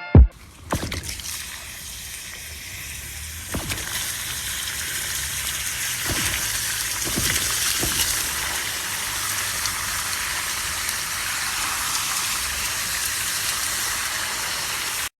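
Water rushing and sloshing: a steady noise that builds after about three and a half seconds, with a couple of sharp thumps at the start and a few dull knocks, cutting off abruptly at the end.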